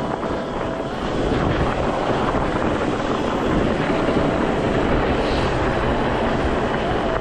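Fat-tyre mountain bike rolling fast down a dirt and snow trail: a steady rumble of the tyres with rattling from the bike, a little louder from about a second in.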